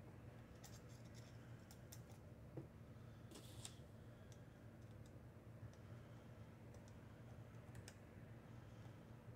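Near silence with faint, scattered clicks and light scrapes of small metal parts and a small screwdriver as a lightsaber hilt is fitted together, over a low steady hum.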